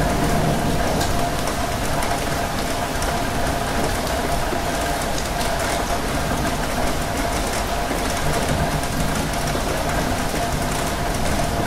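Steady rain on windows over the constant rumble of a moving rail carriage, heard from inside, with a faint steady hum.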